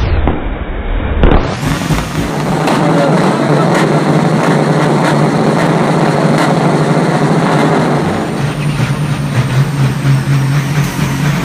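Semi-truck diesel engines running loud and steady at high revs through tall straight exhaust stacks, under heavy throttle. The sound changes about eight seconds in, where a second truck takes over.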